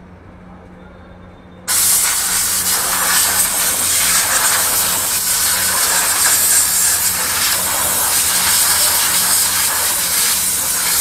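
Loud, steady hiss of a pressurised air or spray jet worked close to the Meteor 350. It cuts in suddenly about two seconds in and runs without a break.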